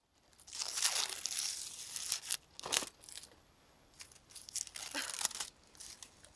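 Dry tearing and crinkling of a papery material in irregular bursts: a long rustling tear at first, a sharp crack a little under three seconds in, then more crinkling crackles.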